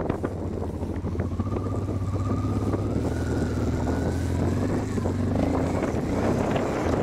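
Honda Transalp's V-twin engine running under load as the motorcycle rides through snow, its note climbing slowly from about a second in before easing off near the end. Wind buffets the microphone throughout.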